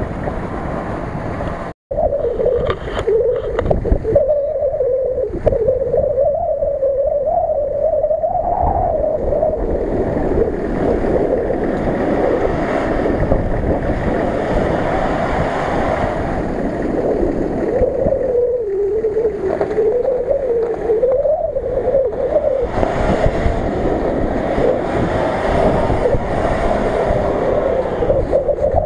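Off-road 4x4's engine running under load over rough, snowy ground, its pitch wavering up and down with the throttle, under heavy wind buffeting on the microphone. The sound cuts out for a moment about two seconds in.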